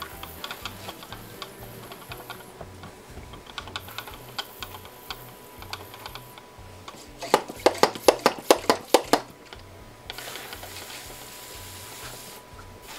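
Hand pump pressure sprayer misting plants: a soft hiss of spray with light scattered clicks. A little past the middle comes a quick run of about ten loud, sharp clicks, about five a second.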